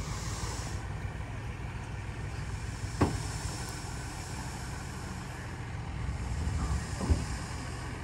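Heavy diesel machinery running steadily, swelling a little near the end. Two sharp knocks stand out, about three seconds in and again about seven seconds in.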